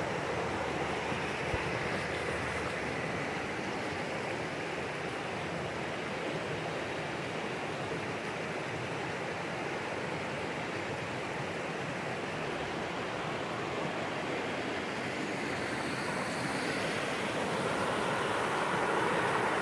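Rocky mountain stream rushing over shallow rapids: a steady noise of white water, a little louder near the end.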